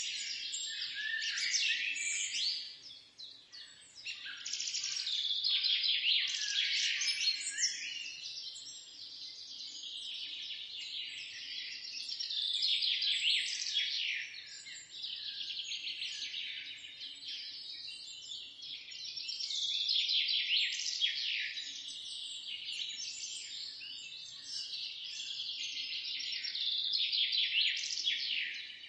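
A chorus of many small songbirds chirping and twittering over one another, growing louder and softer every few seconds.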